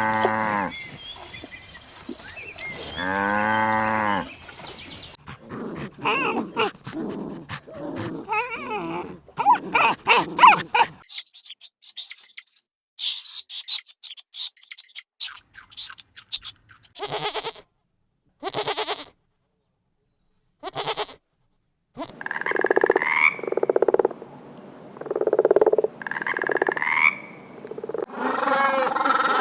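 A succession of different farm animal calls, opening with two long cow moos. These are followed by assorted shorter calls, a stretch of short high chirps, a few brief clicks, and several bleating calls that rise in pitch near the end.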